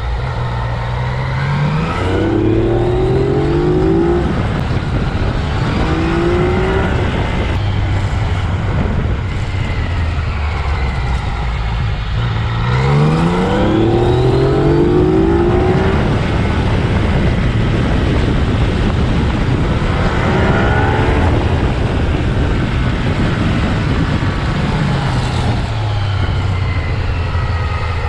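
Yamaha XSR900's inline three-cylinder engine accelerating hard out of bends several times. Its pitch climbs, drops back and climbs again in steps as it goes up through the gears, between stretches of steadier running, with wind rush underneath.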